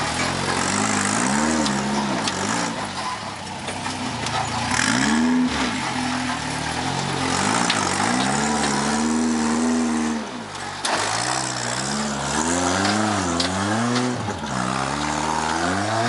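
Rock crawler pickup truck's engine revving up and down again and again under load as it climbs a steep rock ledge. There is a single sharp knock about eleven seconds in.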